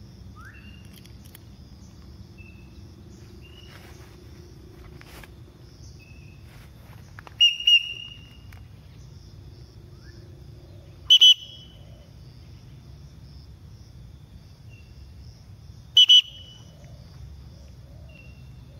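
Three loud, short double-note whistles, a few seconds apart, over a steady outdoor background with faint scattered bird chirps.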